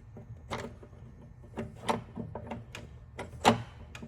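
Irregular sharp clicks and knocks, about a dozen, the loudest about three and a half seconds in, from the cradle's rocking-lock mechanism as the welded wing nut and cam are worked by hand.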